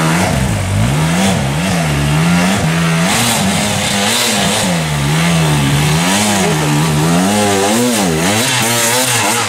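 Enduro motorcycle engine revving hard under load as the bike climbs a steep dirt slope. The pitch swings up and down over and over as the throttle is opened and closed.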